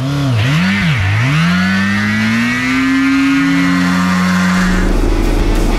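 Yamaha FZR600 inline-four sport-bike engine revved in two quick blips, then held high and steady as the rear tyre spins against the road in a burnout. About four and a half seconds in, the sound turns rougher as the tyre scrubs.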